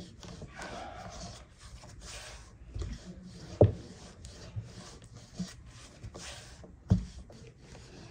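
Repeated short rubbing and scraping strokes, with two sharp knocks about three and a half and seven seconds in.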